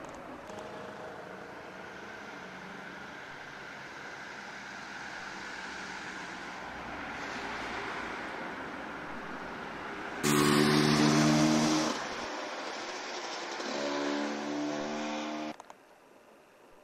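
Motor vehicle engines running steadily, with a much louder engine for a couple of seconds about ten seconds in and another shortly after; the sound cuts off abruptly near the end.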